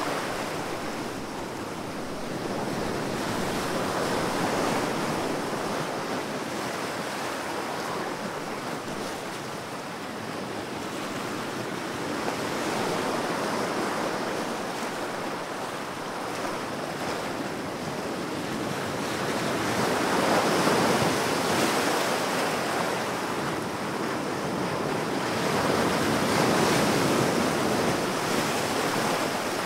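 Ocean surf: waves surge in and fall back every six to eight seconds over a steady rushing hiss, and the two strongest surges come in the last third.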